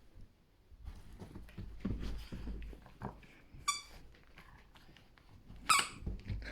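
Dog's squeaky toy squeaking twice, a short squeak past the middle and a louder one about two seconds later, among soft thuds and rustling as the dog plays with it.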